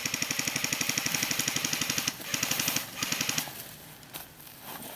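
Airsoft rifle firing on full automatic: a long burst of rapid shots lasting about two seconds, then two short bursts.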